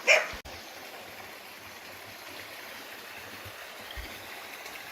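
A river flowing steadily, an even rush of water. A short, loud burst of noise comes right at the start and cuts off abruptly.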